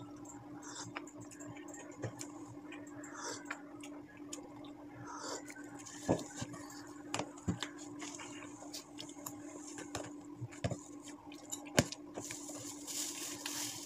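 Eating sounds picked up close: sipping and chewing, with scattered clicks of a metal spoon, over a steady low hum.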